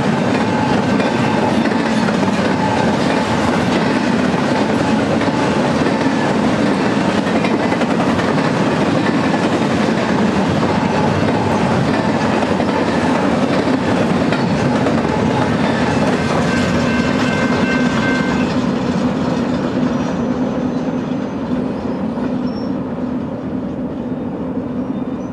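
BNSF double-stack intermodal container train passing at close range: the steady noise of its well cars' wheels running on the rails. About twenty seconds in, the last cars go by and the sound fades as the train draws away.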